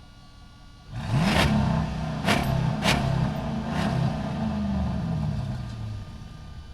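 Truck engine starting to pull away about a second in, revving up and then easing off, with three sharp noises early on, echoing in a parking structure.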